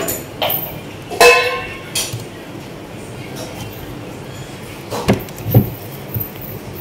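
Soft freezer frost crunching and squeaking as a bare hand grabs, squeezes and digs into it, in several separate crunches, the loudest with a high squeak about a second in. Two duller knocks follow about five seconds in.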